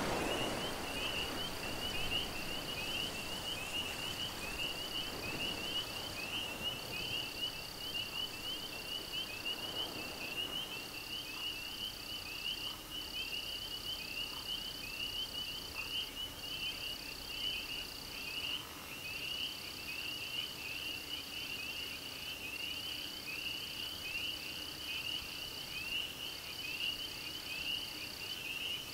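A chorus of calling frogs: a dense band of fast, repeated chirping, with a higher steady trill above it that comes in phrases of about two seconds broken by short pauses.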